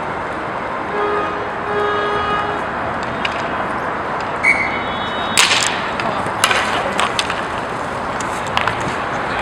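Inline roller hockey play: a steady rolling rumble of skate wheels on the rink floor, with a few short shouts early on and several sharp clacks of sticks and puck from about halfway through.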